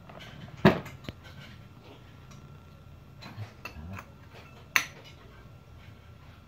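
Hard tools being handled against a wall: two sharp clacks about four seconds apart, with a few lighter taps and knocks between them.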